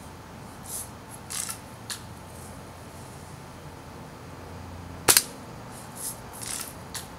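Spring-powered Buck BB gun firing once about five seconds in: a sharp crack as the BB strikes and lodges in a bar of wax. Three softer clicks follow about a second after this shot, and also early on after the previous one.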